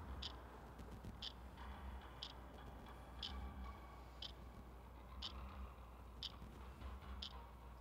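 A clock ticking evenly, one sharp high tick a second, over a low steady room hum.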